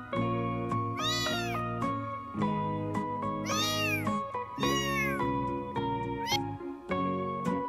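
A two-week-old kitten mewing: three high mews that rise and fall in pitch, and a short fourth near the end, over background music.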